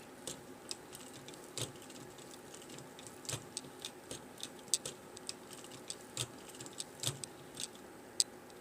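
Scattered light clicks and taps, irregularly spaced, some sharper than others.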